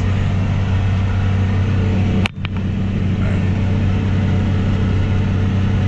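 Polaris Ranger side-by-side's engine running at a steady pitch, heard from on board, with a brief break in the sound a little over two seconds in.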